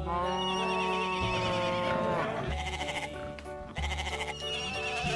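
Background music with a long wavering pitched call over it at the start and again near the end.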